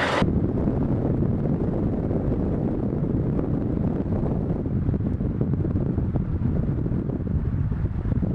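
Steady low rumble of road and wind noise from a moving car, with wind buffeting the microphone.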